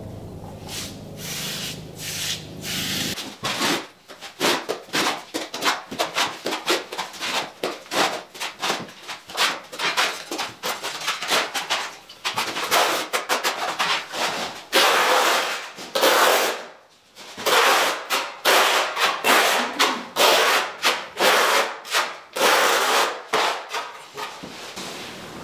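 Steel notched trowel scraping and spreading tile adhesive across the floor in quick, irregular strokes, starting about three seconds in, with a couple of short pauses.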